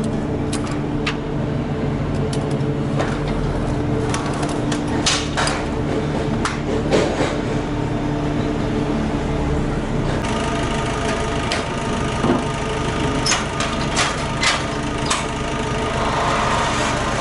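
An engine running steadily at idle, with scattered clicks and knocks over it. About ten seconds in, a higher steady tone joins the engine sound.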